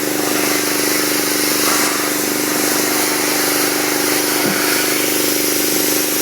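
Dewalt DPW4240 gas pressure washer running steadily: an even engine hum under a constant hiss.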